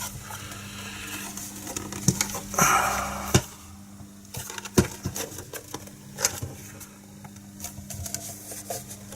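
Plastic case of an MF47 analogue multimeter being handled and pried at to get it apart: scattered sharp clicks and knocks with some rustling, over a steady low hum.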